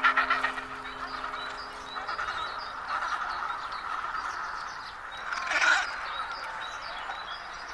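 A chorus of animal calls made up of many short chirps, with one louder call standing out about five and a half seconds in.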